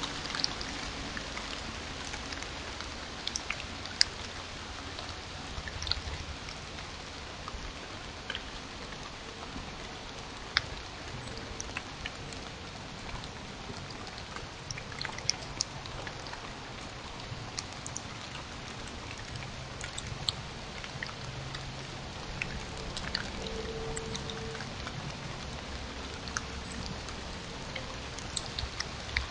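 Steady rain, an even hiss with scattered sharp ticks of drops striking close by.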